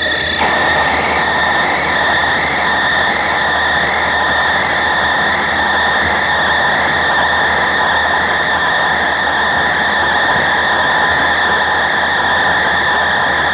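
Manual Mazak lathe turning a large 17-4PH stainless steel part: a steady high-pitched whine over the machine's running noise. The whine wavers slightly about every two-thirds of a second.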